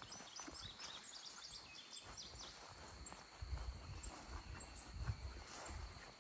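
Quiet rural ambience. A small bird gives a quick run of high chirps in the first couple of seconds over a steady thin high hum, typical of insects. From about three seconds in come soft, uneven low thuds, like footsteps on grass.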